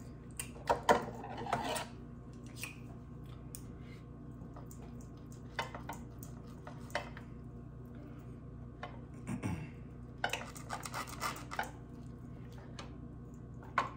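Cutlery clinking and scraping on a plate in scattered bursts, loudest about a second in and again in a cluster around ten to eleven seconds in, over a faint steady hum.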